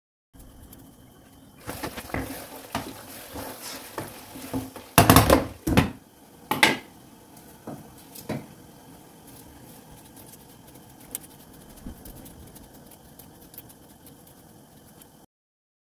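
Kitchen clatter of a knife and dishes as salad vegetables are cut by hand over a small plate and dropped into a glass bowl. A few loud sharp knocks come about five to seven seconds in, then lighter scattered clicks.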